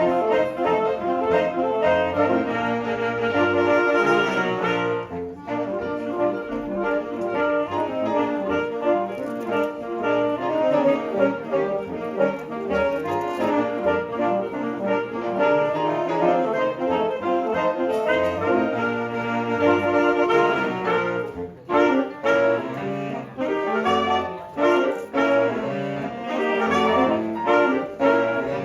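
A saxophone ensemble playing together, several saxophones in close harmony in a jazz style, with short breaks between phrases about five seconds in and again about twenty-one seconds in.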